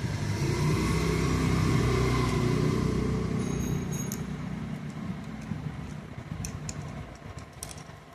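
A motor vehicle engine running close by and fading away over the first five seconds or so, then light metallic clicks and clinks from springs, bolts and the pressure plate of a motorcycle clutch being fitted by hand.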